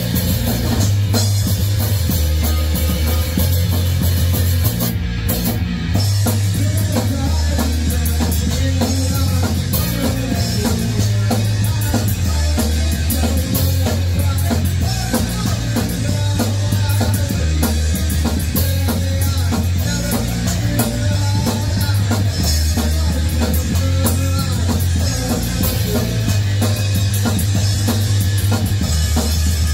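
A rock band playing live: electric guitar and a drum kit over a low bass line that changes note every second or two.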